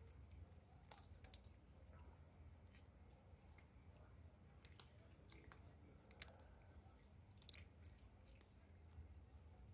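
Two cats eating dry kibble: faint, irregular crunching and clicking as they chew, over a low steady rumble.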